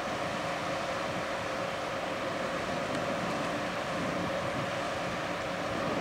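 Steady drone of a large ship's machinery and a harbour tug's diesel engines working alongside it, with a constant hum over a rush of wind.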